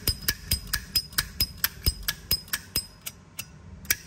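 Rapid metallic clicks from a brass Zippo lighter being handled, about four a second with a slight ring, slowing to a couple of single clicks near the end.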